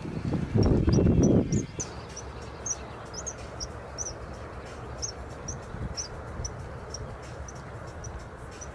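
Small bird giving short, high chirps over and over, about two a second, over a steady low background rumble. For the first second and a half a louder rustling, buffeting noise is heard, which stops suddenly.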